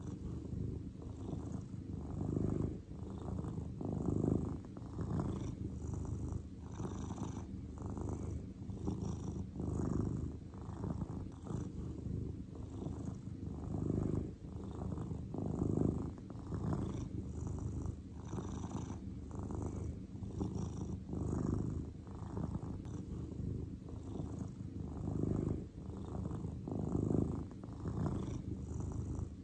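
Grey long-haired cat purring steadily, the purr swelling and easing in an even rhythm.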